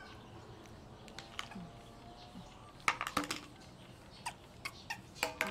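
A string of short, sharp clicks and taps of small hard plastic things being handled by a baby monkey: an orange plastic spoon and a small green plastic lid. The loudest cluster comes about three seconds in, with a few more taps near the end.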